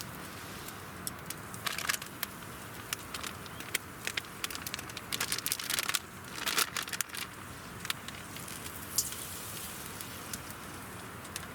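Campfire crackling with irregular sharp pops, thickest about halfway through, over a steady rush of river water.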